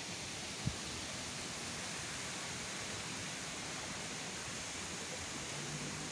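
Strong wind making a steady, even rushing hiss, with one short knock about a second in.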